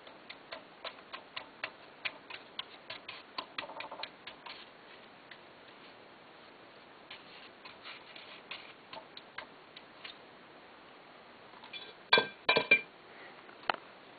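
Plastic toilet brush knocking and clicking against the porcelain bowl of a Kohler Wellworth toilet as it is worked around in the water, in irregular ticks, with a few much louder knocks near the end.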